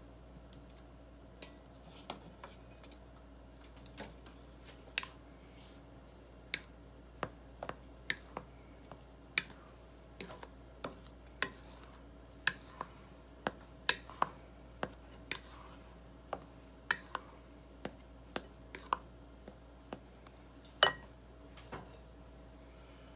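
Wooden spatula stirring dry flour in a glass mixing bowl, knocking against the glass in irregular sharp taps about one or two a second, with the loudest tap near the end, over a faint steady hum.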